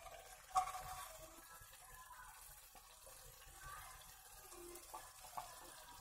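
Paneer masala gravy simmering faintly in a kadai, a soft bubbling sizzle, with one short clink about half a second in.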